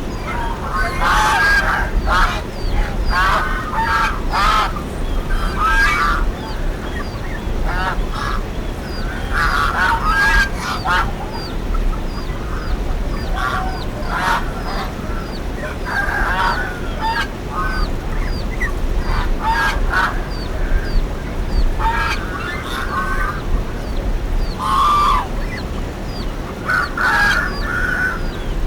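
Several large birds calling over and over, short calls in clusters every second or two, with faint high chirps and a steady low background noise underneath.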